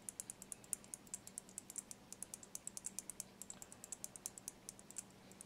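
A stirring stick clicking against the inside of a small glass beaker as clear epoxy is stirred to mix in pigment powder: rapid light clicks, about eight a second, stopping shortly before the end.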